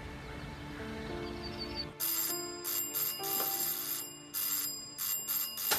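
Soft background music, then from about two seconds in an electric doorbell rings again and again in quick short and longer presses, about nine rings in all.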